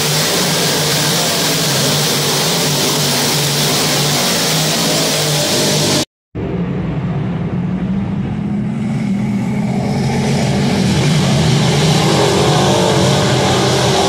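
Dirt-track race car engines running hard around the oval, loud and steady with a gritty roar. After a sudden short dropout about six seconds in, the engines are heard duller from outside the track, growing louder and fuller near the end.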